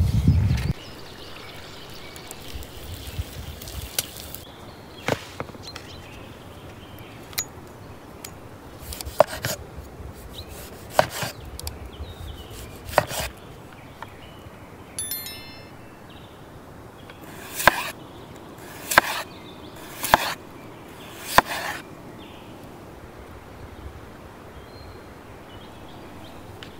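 Scattered knocks and taps of a knife working on a wooden cutting board, with four heavier chopping strokes about a second apart past the middle.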